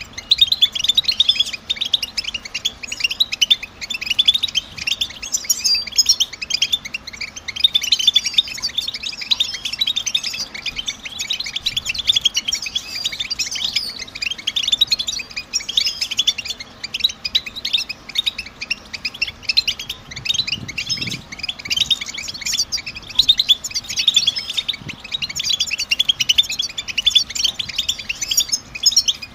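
European goldfinch twittering: a dense, unbroken stream of fast, high chirps and trills.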